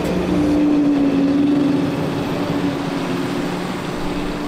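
Liebherr wheel loader's diesel engine running steadily as the machine drives over a silage clamp, with a clear hum that rises slightly about half a second in and then eases off.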